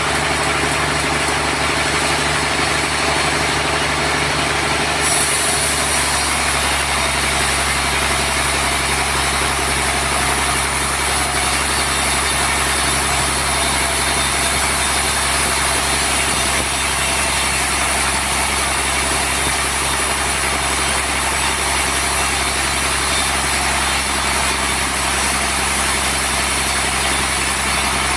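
Sawmill machinery running steadily with a constant hum and hiss; its sound shifts about five seconds in.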